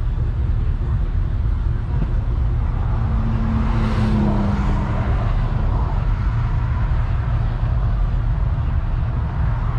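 Steady low rumble of motor vehicle engines, with one vehicle passing about three to five seconds in: its engine tone drops slightly in pitch as a hiss rises and fades around it.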